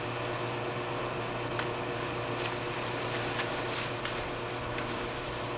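Steady background hum and hiss, with faint scattered rustles and crackles of shredded paper and plastic as gloved hands dig through a pile of shredded refuse.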